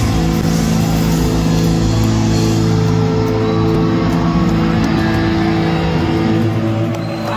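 Live rock band playing loudly through a concert hall's sound system, with long sustained electric guitar chords to the fore.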